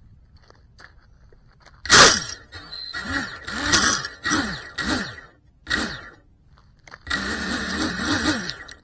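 FPV freestyle quadcopter's motors whining as it flies close by, the pitch rising and falling again and again with each burst of throttle. The sound starts suddenly about two seconds in, dips briefly around six to seven seconds, then returns loud before cutting off near the end.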